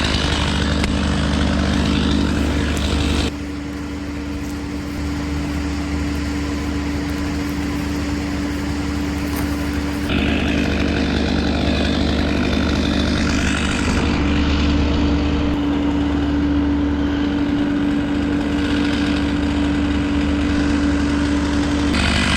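Small petrol engine running steadily at a constant pitch. The sound changes abruptly three or four times as if spliced from several takes.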